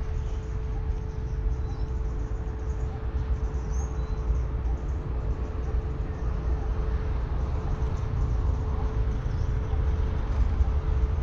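Trackside ambience: a steady low rumble with a faint constant hum. A couple of faint bird chirps come about four seconds in.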